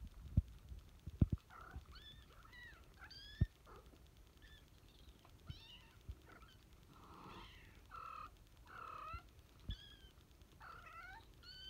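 Young kittens mewing: many short, high-pitched cries, one after another and overlapping at times. A few sharp, low thumps are heard in the first few seconds.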